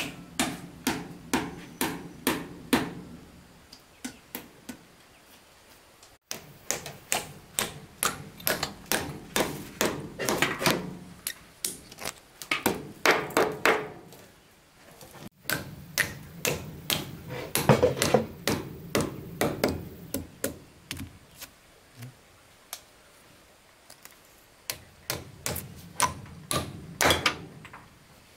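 Hammering: quick runs of hammer blows, about three a second, broken by short pauses.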